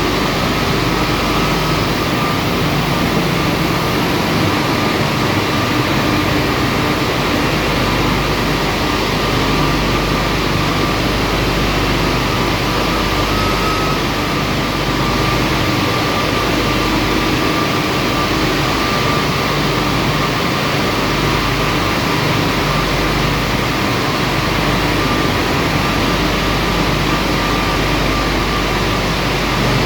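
Marble sandblasting machine running steadily: a continuous hiss of the blast over a low motor hum, with a faint steady whine.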